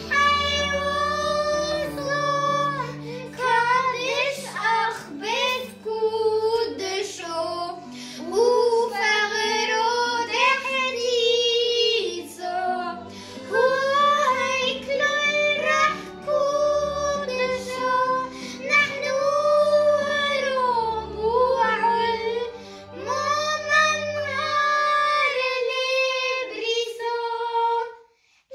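Two young girls singing a Christmas hymn together over a low, sustained instrumental backing. The singing breaks off briefly just before the end.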